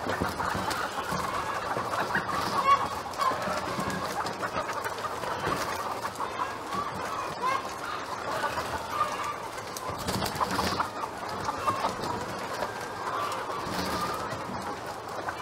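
A large flock of hens clucking, many overlapping calls forming a continuous chatter.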